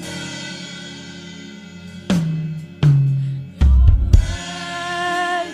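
Live band drum fill over a held keyboard chord: three tom strikes descending in pitch, the last a loud, low boom with bass drum and cymbal, then the chord sustains again.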